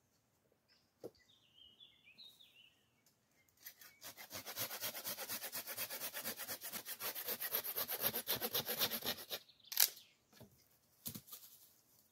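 Curved-blade folding pruning saw cutting through a wooden pole in quick, even back-and-forth strokes, several a second, for about five seconds, then a single sharp crack as the piece breaks off. A few short bird chirps come before the sawing.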